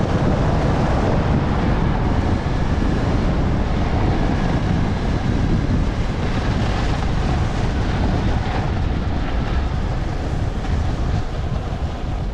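Wind buffeting the microphone at skiing speed, with skis sliding and scraping over groomed snow: a loud, steady rush.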